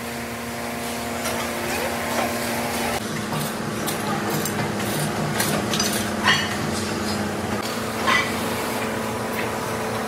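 A workshop machine running with a steady hum, its tone shifting about three seconds in, with a few sharp metallic clinks over it.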